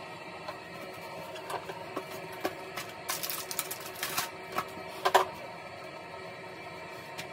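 Handling noises from a plastic tub of disposable toilet wipes: light clicks and knocks, a rustle about three seconds in as a wipe is pulled out, and a sharper click about five seconds in.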